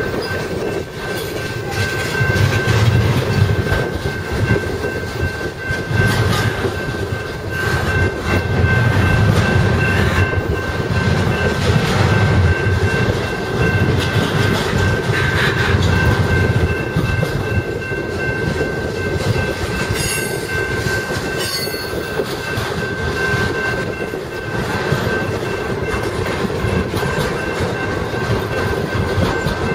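Double-stack intermodal container cars of a freight train rolling past, steel wheels rumbling and clacking on the rails, the rumble swelling and easing every couple of seconds. A thin steady high tone runs over it.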